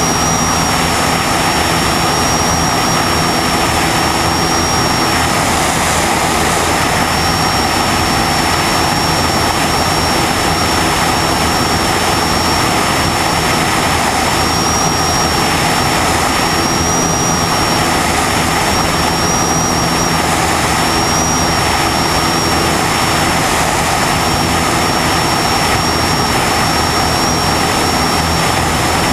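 Steady drone of a light single-engine propeller aircraft's piston engine and propeller in formation cruise, with heavy wind rush on the tail-mounted camera and a thin, steady high whistle that wavers slightly in pitch.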